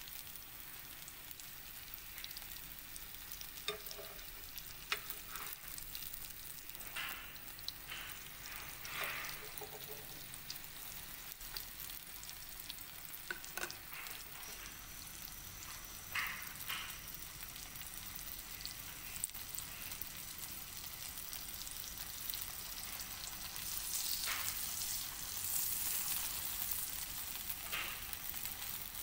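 Butter sizzling and frying on a hot flat griddle under a paratha, a steady hiss broken by occasional short taps and scrapes. The sizzle grows louder about three quarters of the way through.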